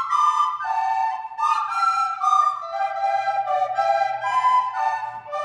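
A group of children playing descant recorders together, a simple tune of short held notes stepping up and down.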